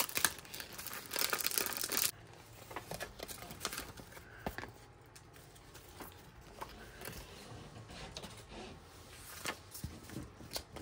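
Plastic sticker packaging crinkling and tearing as a letter-sticker pack is opened and the sheet pulled out. It is loudest for about the first two seconds, then dies down to quieter rustling of the sticker sheet and paper with a few light ticks.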